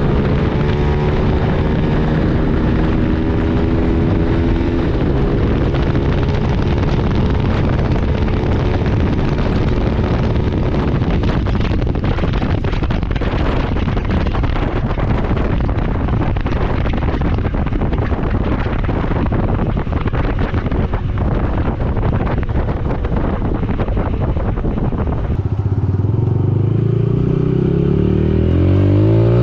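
Yamaha YBR 125's single-cylinder four-stroke engine running through a loud, bassy aftermarket slip-on exhaust with the baffle (dB killer) removed, heard while riding. Through the middle stretch the engine note is largely masked by a rough rush of wind and road noise. Near the end the engine revs up with a quickly rising pitch.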